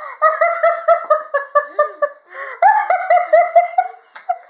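High-pitched giggling laughter in quick repeated bursts, in two long runs with a short breath between them about two seconds in.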